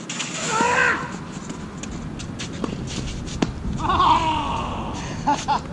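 Tennis rally: sharp pops of a racket striking the ball, with a player's wordless grunt on a stroke about half a second in and again around four seconds in.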